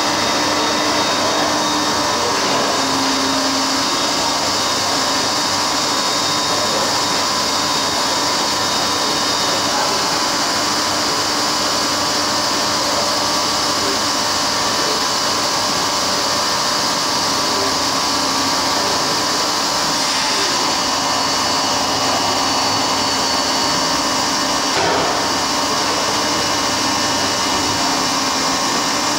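Kearns Richards NC125 CNC horizontal boring machine running under power: a steady mechanical hum and whine with several constant tones, and one short click near the end.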